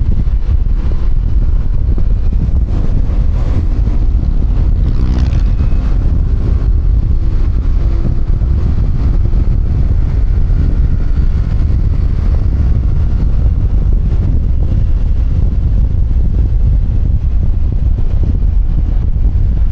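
Wind rushing over a helmet-mounted external microphone on a moving QJMotor Fortress 160 scooter: a steady, loud low rumble. The scooter's running and road traffic sit underneath it, and a low hum comes through for a few seconds about a quarter of the way in.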